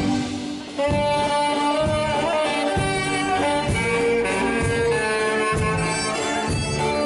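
Live band playing an instrumental passage: held melody notes over a steady bass beat. The music thins briefly at the start and comes back in full about a second in.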